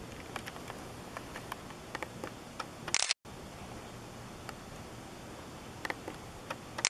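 Camcorder handling noise over a steady hiss, with small scattered ticks. About three seconds in and again near the end, a sharp click comes from the camera, each followed by a sudden dropout where the recording stops and restarts.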